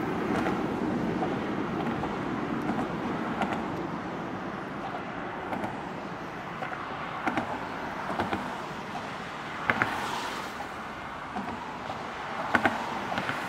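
Road traffic passing on a multi-lane highway: a steady rush of car tyres and engines that slowly eases, with wind on the microphone. A few brief sharp knocks stand out, the loudest about ten seconds in and near the end.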